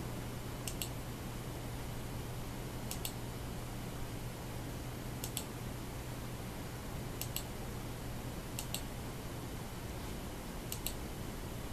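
Quiet clicking at a computer: six sharp double clicks, each a press and release, spaced one to two seconds apart over a low steady hum.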